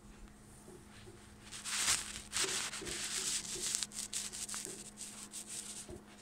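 Handling noise: a run of scratchy rubbing rasps, starting about one and a half seconds in and dying away near the end, over a faint steady hum.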